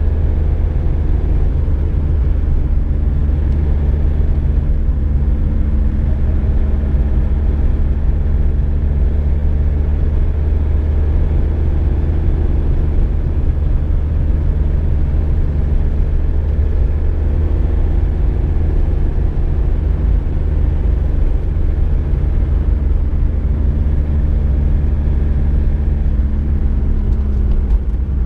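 Volkswagen Golf Mk2 heard from inside the cabin while driving: a loud, steady low engine and road rumble with a constant drone, speed holding even.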